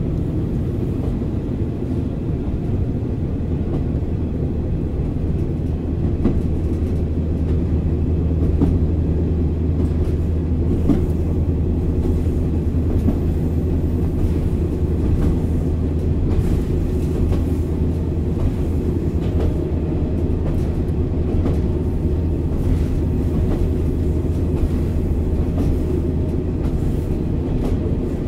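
Komatsu replacement diesel engine of a JR Kyushu KiHa 40 8000-series railcar idling steadily while the car stands still, heard from inside the passenger cabin, with a few faint knocks.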